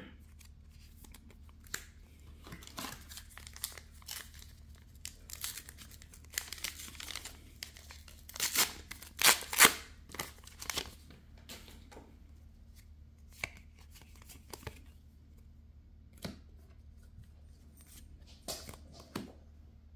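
A trading-card booster pack wrapper being torn open, with its loudest tearing and crinkling about halfway through. Around it come short soft clicks and rustles of cards being handled and flipped.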